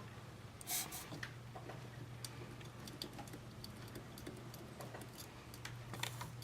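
Light clicks and taps of hand tools working on a circuit board during desoldering, with two short hissing bursts, one about a second in and one near the end, over a steady low hum.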